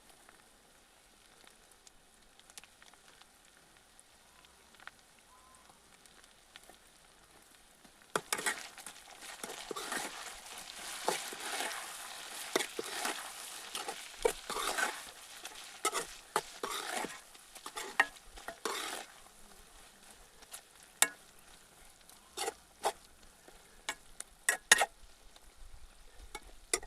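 Chicken frying in a hot pan: a quiet start, then about a third of the way in a loud sizzling hiss sets in with many sharp scrapes and clinks of a utensil stirring the pan. The sizzle dies down in the last third while the scrapes and clinks go on.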